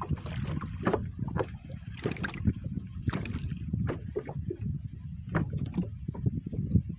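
Low rumble of wind on the microphone and water against a small boat, with scattered irregular clicks and knocks.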